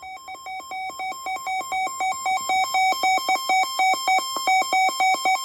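Weather alert radio sounding its alarm for a newly issued marine warning: rapid electronic beeps, about five or six a second, alternating between two pitches. The beeps grow steadily louder and cut off sharply near the end.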